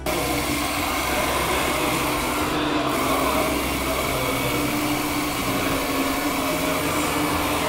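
Liebherr R934 RC model excavator's hydraulic pump and electric drive whining steadily as it moves a loaded bucket, the pitch shifting slightly as the arm works.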